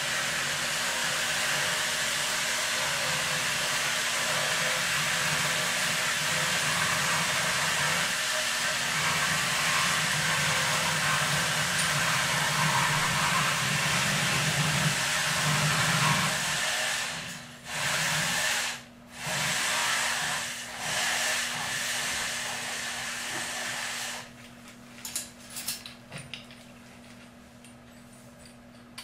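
A steady hiss with a low hum beneath it, which drops out briefly twice and stops about three-quarters of the way through. After it come light, scattered metal clicks and taps of a hand tool working on a pipe fitting.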